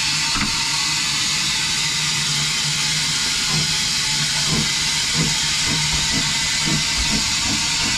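Small steam locomotive hissing steam steadily as it is about to set off. A low hum runs under the hiss, and from about three and a half seconds in a low beat repeats roughly twice a second.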